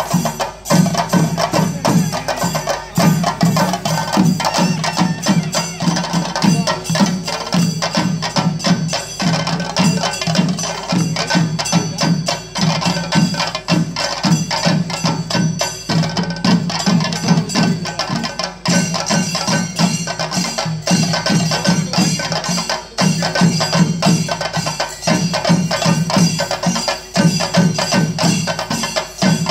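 Chenda drums of a Kerala temple percussion ensemble, beaten in a fast, steady, unbroken rhythm, with metal hand cymbals ringing over them.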